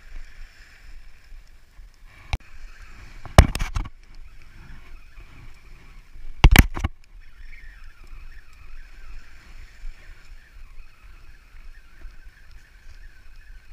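A spinning reel being cranked steadily while a hooked blue runner is fought in. The reeling stops briefly about seven seconds in. Sharp knocks come about two seconds in, a quick cluster around three and a half seconds, and another pair around six and a half seconds.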